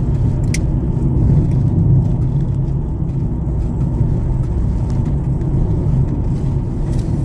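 Steady low rumble of a moving car's engine and tyres, heard from inside the cabin while driving, with a single sharp click about half a second in.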